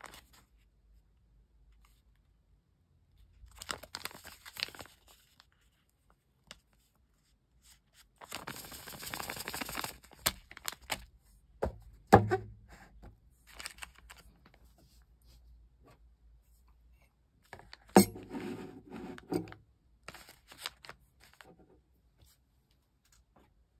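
Foil-lined paper hot cocoa packets rustled and crinkled as they are handled, with a longer tearing-like rustle lasting about two seconds. Two sharp knocks with a brief low ring, the second the loudest, as a ceramic mug with a spoon in it is set on the table.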